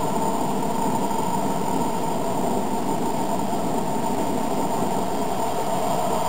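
HO-scale model diesel locomotive with an onboard sound system, playing a steady diesel engine rumble through its small speaker as the train runs slowly along the track.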